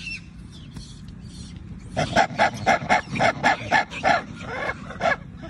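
Rhesus macaques giving a rapid series of about a dozen loud, pitched calls, three to four a second, starting about two seconds in: a brief squabble within the troop.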